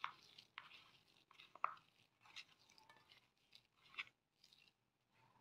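Faint, scattered crunches and squishes of a bare hand kneading crushed turkey berries into grated-coconut mallum in a metal bowl, a few soft clicks a second apart.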